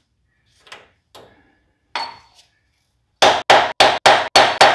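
A hand sledge hammering a metal drift down onto the seized pistons of an engine with its head off, to free them. A few light metallic clinks come first, then a little past three seconds in a fast, even run of sharp strikes starts, about four a second.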